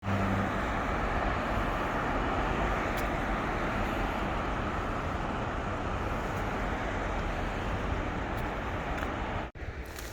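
A steady outdoor roar of noise with a low rumble under it, cutting off abruptly about nine and a half seconds in.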